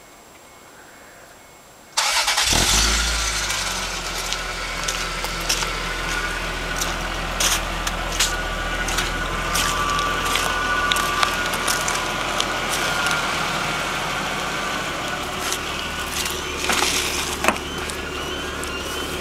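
1989 Toyota Supra Turbo's 7M-GTE turbocharged inline-six starting about two seconds in, then idling steadily, with a thin high whine sitting over the idle.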